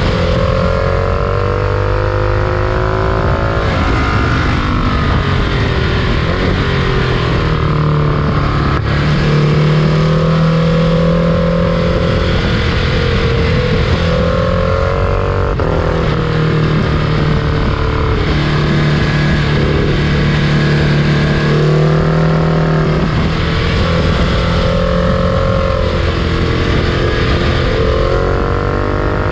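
Engine running steadily under load, a low steady hum with higher tones that rise and fall every few seconds.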